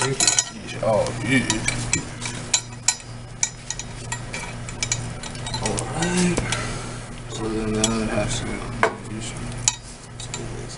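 Irregular clicks, clinks and rustles of small metal pipe fittings, tools and a rag being picked up and handled at a sink, over a steady low hum.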